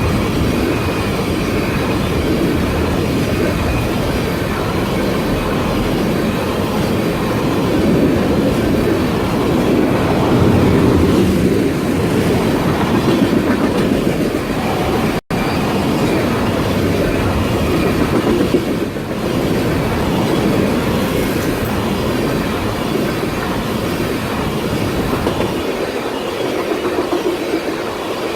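CSX freight train rolling past at speed, its steel wheels clacking steadily over the rail joints with a constant rumble of the cars. The sound cuts out for an instant about halfway through.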